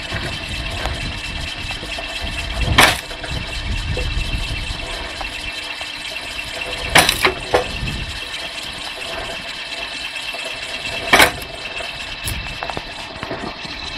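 Homemade belt-driven, gearbox-powered firewood splitter running steadily. Its rotating arm splits logs with a sharp crack about every four seconds, one of them a quick run of three cracks.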